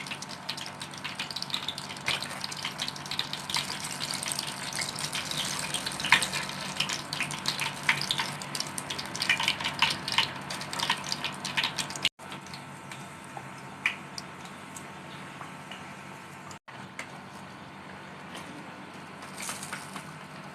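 Hot cooking oil sizzling and crackling around breaded fried bread, with many quick pops. About twelve seconds in the sound cuts out briefly and the crackle gives way to a softer, steadier hiss, broken by a second brief cut-out a few seconds later.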